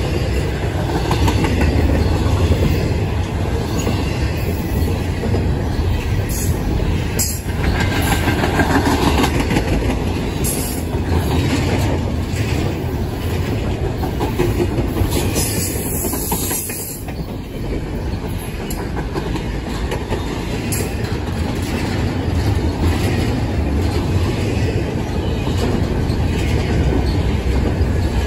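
Double-stack container cars of a CSX intermodal freight train rolling past close by: a steady rumble of steel wheels on rail, with clacking of the wheels over the track.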